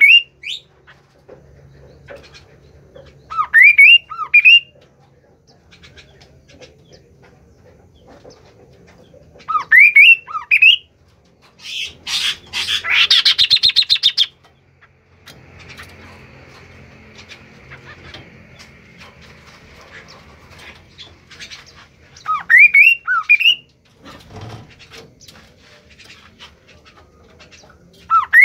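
A bird calling in short phrases of three or four quick rising whistled notes, repeated every several seconds, with a loud rapid rattling burst of about two seconds near the middle.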